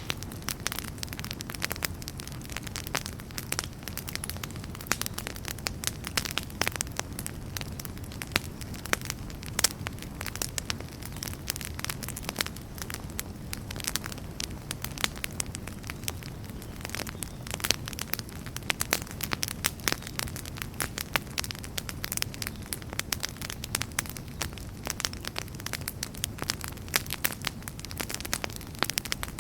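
Wood campfire burning, with dense irregular crackles and pops over a steady low rumble of flame.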